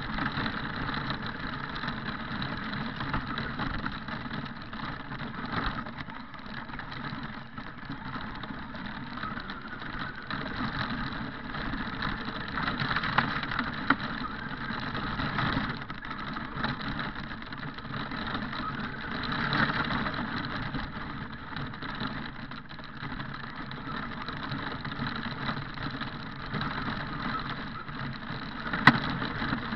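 Radio-controlled truck driving over gravel, heard from a camera mounted on its body: the drivetrain running and the tyres crunching on stones, rising and falling as it speeds up and slows. Two sharp knocks, one about halfway through and one near the end.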